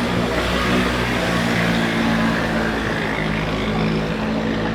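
Fireworks display from Taipei 101 heard as a loud, continuous din with a low rumble, mixed with the noise of the watching crowd.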